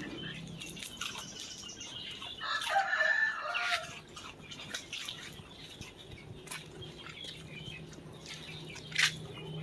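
A rooster crowing once, a call of about a second and a half starting a couple of seconds in, among scattered small clicks and knocks, with a short sharp noise near the end.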